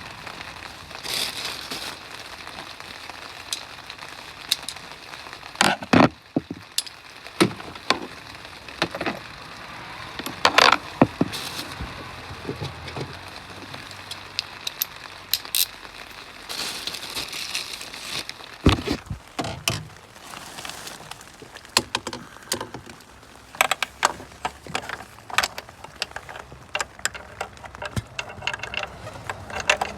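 Hand tools and metal engine parts being handled during under-hood work: irregular sharp clicks and clanks, with a few brief rustling stretches.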